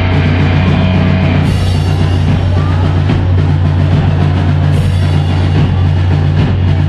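Live rock band playing loud on electric guitars, bass guitar and drum kit, with bright cymbal washes about a second and a half in and again near five seconds.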